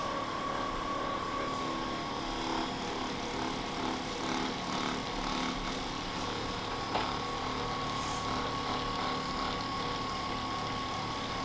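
Handheld electric massager running steadily, a motor hum with a thin high whine, its pitch wavering as it is worked over the back and hip muscles. One short click about seven seconds in.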